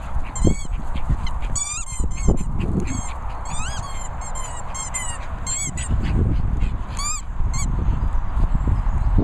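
Dog's blue fish-shaped squeaky toy squeaking as a cocker spaniel chews it: quick runs of short, high, rising-and-falling squeaks that stop near the end.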